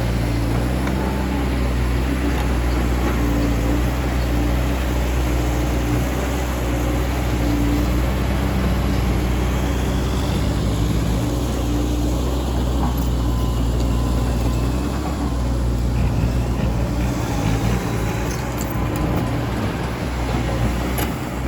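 Caterpillar 320D2 GC excavator's diesel engine running steadily, a low drone. A faint whine comes and goes about halfway through.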